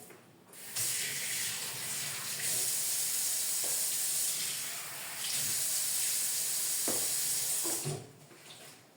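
Kitchen tap running into the sink, with a short dip about halfway through, then shut off about a second before the end. A couple of knocks sound just before it stops.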